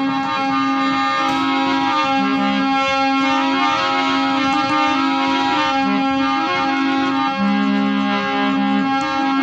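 Instrumental music: a keyboard instrument plays a melody in held notes over a steady drone.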